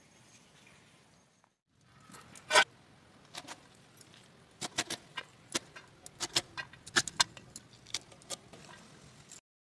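Crisp, irregular clicks and snaps, two or three a second, as a bunch of fresh spinach is cut up by hand and the pieces fall onto a steel plate. The single loudest snap comes about two and a half seconds in.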